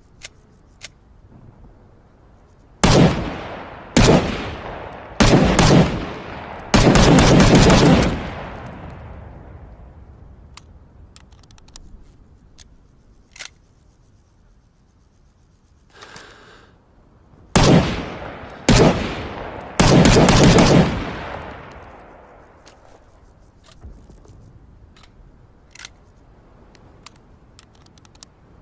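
SKS semi-automatic rifle firing in two strings. Each string is a few single shots about a second apart, then a quick run of shots that blur together. Faint clicks come in the pause between the strings.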